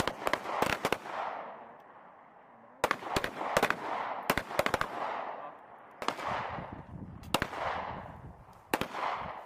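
Pistol shots from several shooters on a firing line, coming in irregular clusters of quick shots, with each cluster trailing off in a long echo.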